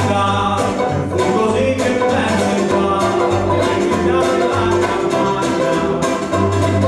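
Live acoustic band playing a bluegrass-style tune on banjo, acoustic guitar and upright double bass.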